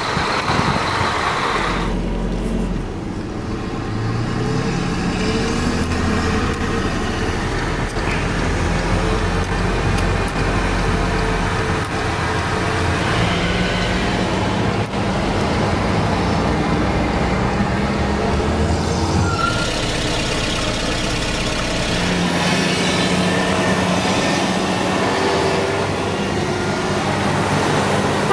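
Heavy vehicle engine running steadily, its pitch rising and falling several times as it speeds up and slows.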